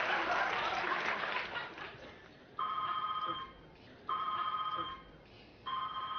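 Studio audience laughter dying away over the first two seconds, then a telephone ringing: an electronic ring repeated three times, about a second and a half apart.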